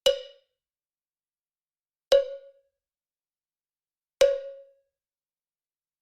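A single pitched percussive strike, like a cowbell or woodblock hit, repeated three times about two seconds apart. Each hit dies away within about half a second.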